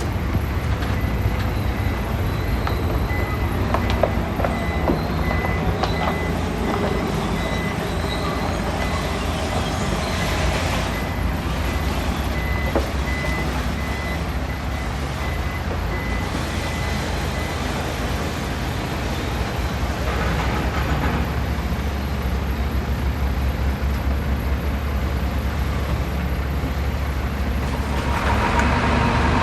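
Heavy diesel earthmoving machinery running with a deep, steady rumble, while a reversing alarm beeps steadily through the first half or more and then stops. A few sharp knocks sound over the engine, and near the end the engine noise grows louder and harsher.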